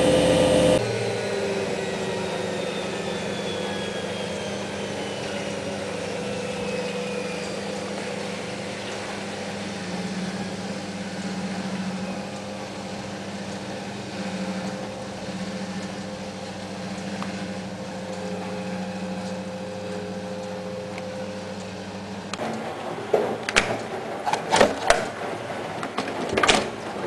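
Hoover Ökologic WA1000 De Luxe washing machine winding down: its loud motor note drops off about a second in, and the drum coasts to a stop with a slowly falling whine over a steady hum. Near the end comes a run of irregular clicks and knocks.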